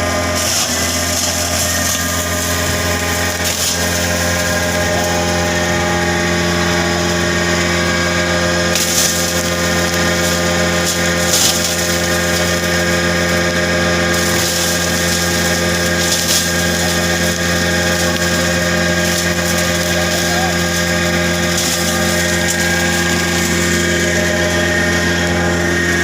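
Wood chip grinding machine running steadily, its motor and rotor giving a constant loud hum and whine, with a few brief clattering surges of noise.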